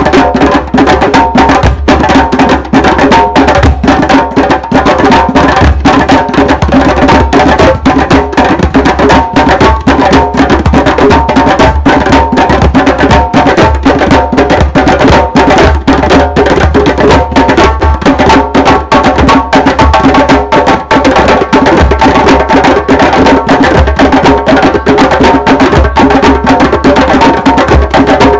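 A group of djembes played by hand together, a dense, continuous run of strokes with no break.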